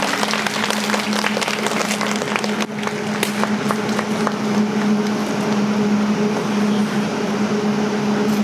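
Audience applauding in an ice rink, the clapping dense at first and thinning out after about three seconds, over a steady low hum.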